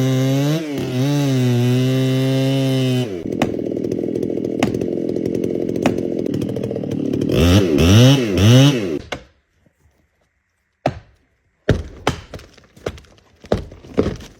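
Two-stroke chainsaw running at high revs, dropping to a lower steady pitch after about three seconds, then revved three times in quick succession before cutting off suddenly. After a short silence come a sharp crack and a run of cracks and thuds of breaking wood as the felled tree comes down.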